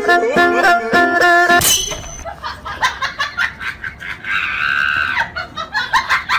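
Upbeat plucked-string background music for about the first second and a half, then a noisier stretch of short taps and clatter, with a high wavering voice-like cry for about a second near the middle.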